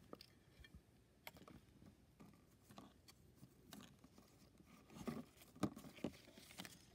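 Faint scattered clicks and light rustling of small plastic toy handbags and plush toys being handled, a little louder about five seconds in.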